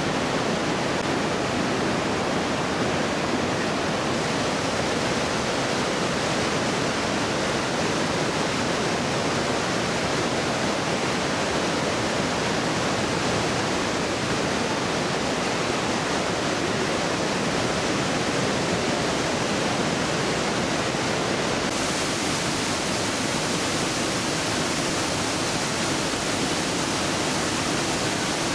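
Mountain river (the Großarler Ache) rushing and falling through a narrow rock gorge: a steady, dense rush of water. About three quarters of the way through, it turns hissier and brighter with waterfall spray.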